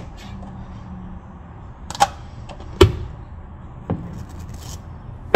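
A cardboard parcel and its plastic-wrapped contents being handled during unboxing: rustling, with three sharp knocks about two, three and four seconds in, the middle one the loudest.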